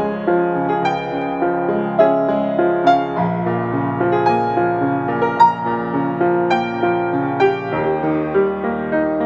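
Upright piano playing a slow, gentle melody of single notes struck about twice a second over held bass notes, which change about three seconds in and again near the end.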